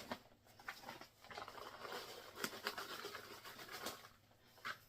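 Faint scratching and rustling of hands working at a bowl of bread dough, with a soft click at the start and another near the end.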